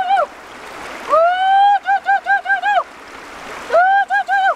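A bird calling loudly, three times: each call is a rising note held briefly, then a quick run of three to five short, even notes. A river's steady rush of water runs underneath.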